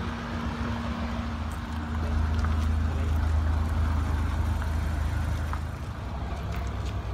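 A motor vehicle running with a steady low drone, getting louder about two seconds in and easing off near the end.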